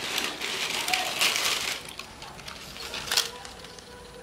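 Thin plastic of a cut-up Pepsi bottle crinkling and crackling in several bursts as hands work its strips, with a few sharp clicks and scissors cutting the plastic near the end.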